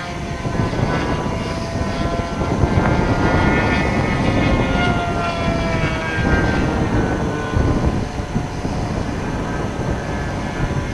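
Engine of a Great Planes Revolver .60 radio-controlled model airplane buzzing in flight, its pitch dropping as it passes by, then fading away in the last few seconds. Heavy wind noise on the microphone runs underneath.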